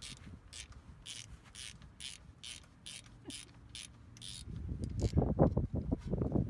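Ratchet wrench on a 5/8 spark plug socket clicking steadily, about three clicks a second, as a spark plug is turned in the welder's engine. For the last two seconds wind buffets the microphone with loud, irregular rumbling.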